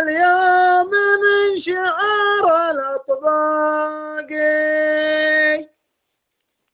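A man's voice chanting the closing words of a Nabati poem in sung style, holding long, slightly wavering notes one after another, then falling silent near the end.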